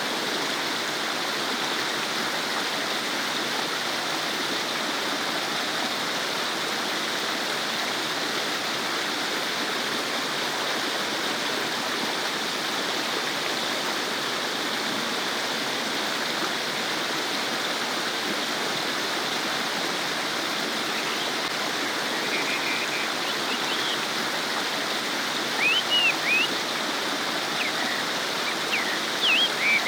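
A stream babbling steadily over rocks, an even rush of flowing water. A few short, high chirps come in over it in the last several seconds.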